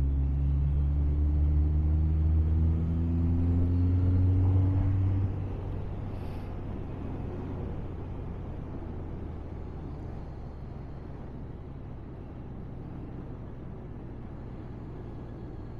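Honda CBR1100XX Blackbird's inline-four engine accelerating hard, its note rising slowly for about five seconds. The throttle then closes and the engine sound falls back under a steady rush of wind and road noise.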